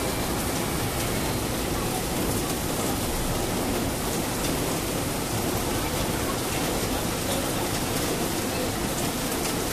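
Heavy monsoon rain pouring steadily, a dense, even hiss of rain falling on buildings, trees and the ground.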